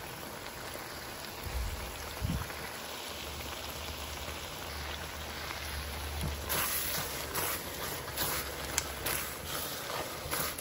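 Thick bottle gourd, milk and sugar mixture sizzling and spluttering in a wok as it is stirred with a silicone spatula and cooked down dry. From a little past halfway there are sharper pops and scrapes.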